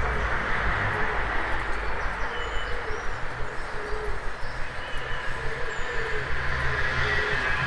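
Dawn chorus in a town centre: scattered short high bird chirps and a low wavering cooing over a steady rumble of traffic.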